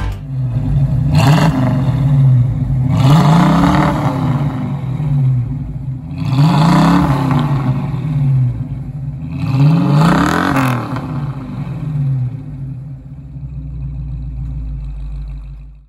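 1970 AMC AMX's 360 V8 revved four times through its twin exhaust pipes, each rev climbing and dropping back over a second or two, then idling.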